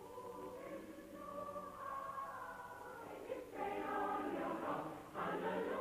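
A choir singing long held chords as background music, with a short break about halfway through. It sounds dull, as on an old film soundtrack.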